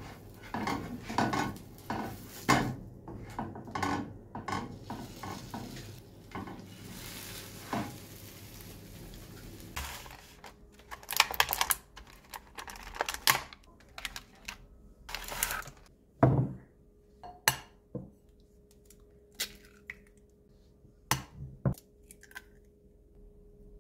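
Wooden chopsticks tapping and scraping in a non-stick frying pan, with food frying lightly underneath. About ten seconds in this gives way to a clear plastic egg carton crackling as it is handled, then eggs knocked on the rim of a bowl and cracked open, one sharp knock at a time.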